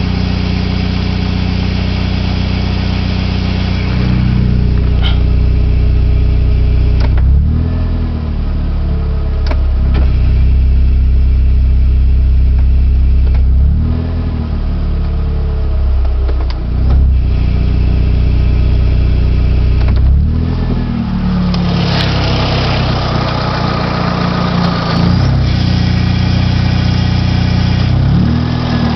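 1995 Geo Metro's 1.3-litre four-cylinder engine and automatic transmission running, the pitch rising and falling four times, about every six to seven seconds. The owner hears odd noises from the transmission that he takes to mean trouble.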